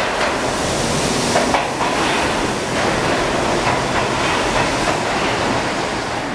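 New York City subway train pulling into the station alongside the platform: a loud, steady rush of steel wheels on the rails, with a few sharp clanks as the cars pass.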